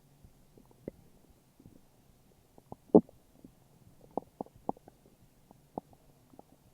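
A person's stomach growling and gurgling: a string of short, irregular pops and gurgles, the loudest about three seconds in, with a quick cluster a second or so later.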